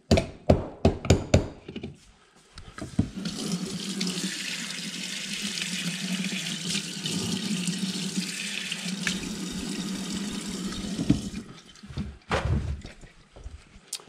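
Espresso portafilter knocked about half a dozen times against a knock box to dump the spent puck. Then a kitchen faucet runs steadily as the portafilter is rinsed under it, shutting off about eleven seconds in. A few more knocks follow near the end.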